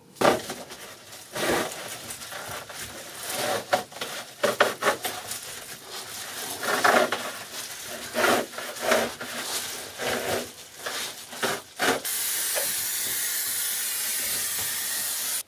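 Foil-faced insulation crinkling and rustling in irregular bursts as it is handled and pressed down on the floor. About twelve seconds in, a spray can of adhesive starts hissing steadily and keeps on to the end.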